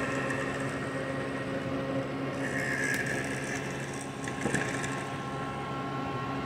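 Small USB-powered desk fan running, a steady whir over a motor hum. There is a light knock about four and a half seconds in.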